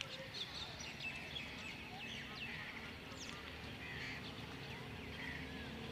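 Birds chirping, with many short calls scattered throughout, over a steady low background rumble and a faint hum that grows slightly stronger about halfway through.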